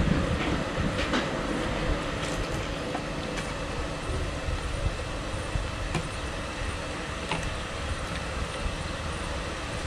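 Cutlery clinking against plates a few times over a steady low rumble of background noise.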